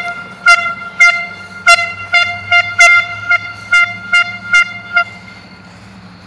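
Handheld air horn blown in a quick irregular run of about a dozen short single-tone toots, about two a second, stopping about five seconds in. A faint low steady hum runs underneath.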